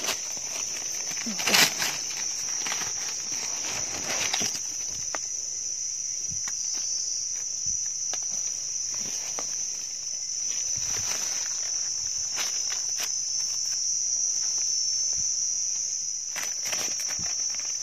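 A steady high-pitched insect drone, with dry leaf litter crackling and rustling under hands and feet; a louder crackle about one and a half seconds in.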